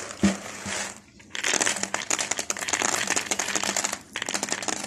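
Dried fava beans clattering against a thin plastic drinks bottle as they are handled at its neck: a single click, then a dense run of rapid clicks from just over a second in, with the plastic crinkling.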